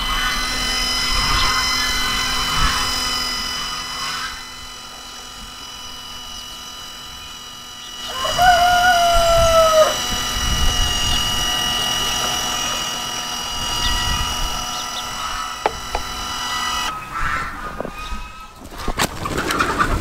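Motor of an automatic chicken-coop door whining steadily as it raises the sliding door, stopping about seventeen seconds in. About eight seconds in a chicken calls once. Near the end, crunching and brushing of snow as a gloved hand clears the ramp.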